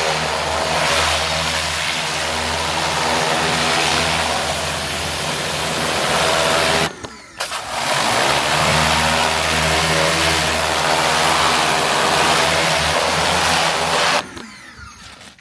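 Greenworks 1900 PSI electric pressure washer running, its motor and pump humming under the hiss of the water spray. It cuts out briefly about halfway through and again near the end, as it does when the spray gun's trigger is let go.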